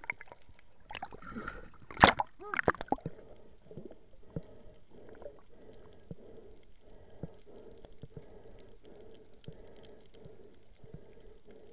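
Underwater sound: air bubbles gurgling close to the microphone for the first few seconds, with a sharp knock about two seconds in. After that, a steady underwater hiss with scattered faint clicks.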